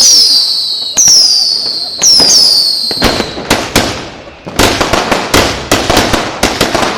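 New Year's fireworks. First comes a string of high whistles, each falling quickly in pitch, about two a second. From about four and a half seconds in, a rapid run of sharp firecracker bangs and crackles follows, several a second.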